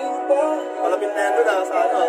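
Background music with a sung vocal line that glides in pitch; it sounds thin, with no bass.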